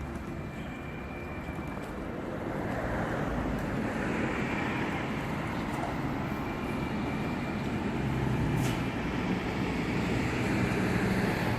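Outdoor road traffic noise: a steady wash of vehicle sound that grows louder a couple of seconds in and then holds.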